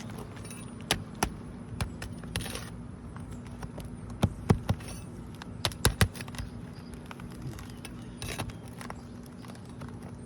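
Sharp metallic clicks and knocks in short clusters, from a pry bar or hammer working under asphalt roof shingles to break their seal and free the nails still holding them. A steady low hum runs underneath.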